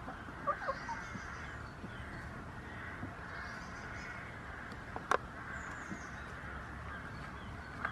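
Birds cawing in the background over a steady hiss, with a few sharp clicks about half a second in and a louder pair about five seconds in.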